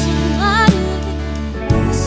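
Live indie rock band playing full band: drums, bass and guitars, with a short wavering lead melody line riding over sustained chords.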